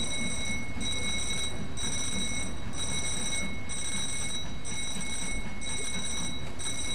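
Narrow-gauge 2-10-2 tank steam locomotive moving slowly with its cylinder drain cocks open: a steady hiss of steam with a faint beat about once a second.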